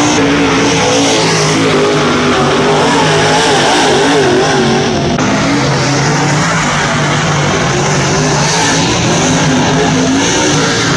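Dirt super late model race cars' V8 engines running hard, loud and continuous, the pitch rising and falling as the cars pass and work through the turn.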